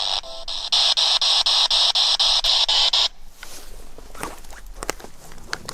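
Spirit box sweeping radio static: loud hiss chopped about five times a second as it scans through stations, with a brief snatch of a station near the start. It cuts off suddenly about three seconds in, leaving quieter clicks and rustling from handling.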